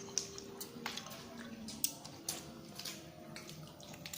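Scattered small wet clicks and smacks of people eating longans: fruit being peeled, chewed and sucked, coming irregularly several times a second.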